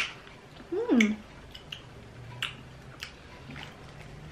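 Mouth sounds of chewing sour gummy candies: soft wet clicks every so often. About a second in comes a short hummed 'mm' that falls in pitch.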